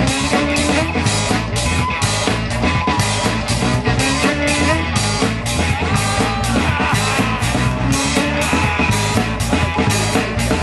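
Live rock band playing electric guitars, bass and drums with a steady beat.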